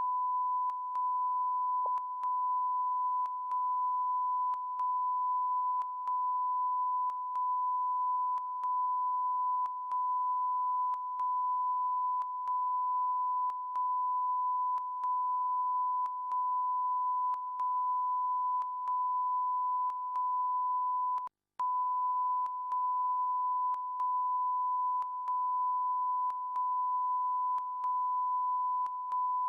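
An unbroken electronic beep tone, the stuck test-style tone on the TV news broadcast's audio, holding one steady pitch. It dips briefly about every second and a quarter and cuts out entirely for a moment about two-thirds of the way in.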